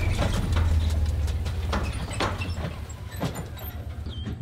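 Pickup truck driving away while towing a boat on a utility trailer over rough grass: a low engine hum that fades from about two seconds in, with scattered knocks and rattles from the trailer and boat.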